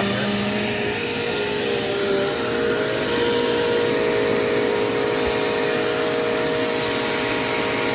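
Dirt Devil Quick Power vacuum cleaner running steadily, a continuous motor whine at an even pitch.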